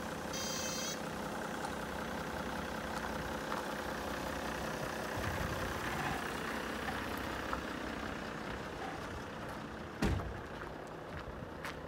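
Toyota Coaster minibus's 1HD 4.2-litre straight-six diesel idling steadily, with a single thump about ten seconds in.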